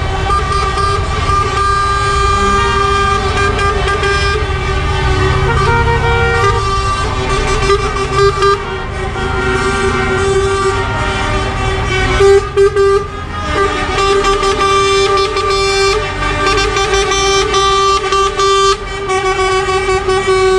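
Lorry horns sounding in long, steady, overlapping blasts as a convoy of truck tractor units drives past, over the low rumble of their diesel engines, with a louder blast about twelve seconds in.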